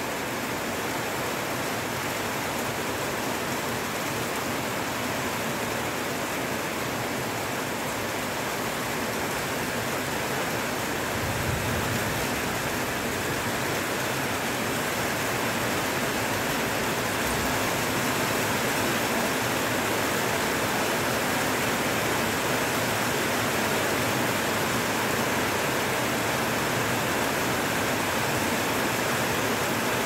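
Heavy rain pouring steadily on trees and foliage, a dense even hiss that grows a little louder about twelve seconds in.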